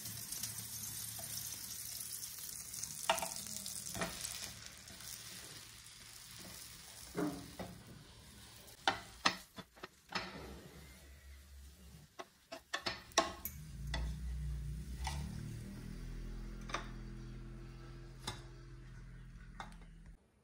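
Butter sizzling under bread slices toasting on a flat iron tawa, with a wooden spatula scraping and tapping the pan now and then. The sizzle fades through the second half as a low hum comes in.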